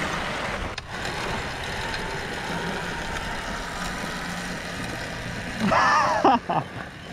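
Electric dirt bike riding along with a steady rush of wind and tyre noise and a faint steady motor hum. A short voice calls out about six seconds in.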